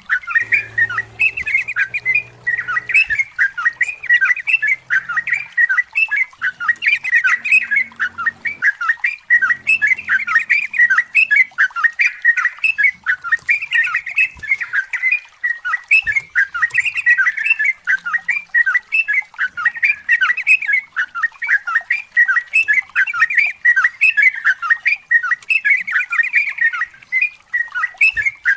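Yellow-vented bulbul (trucukan) in full song, a long, unbroken run of rapid, bubbling chattering notes.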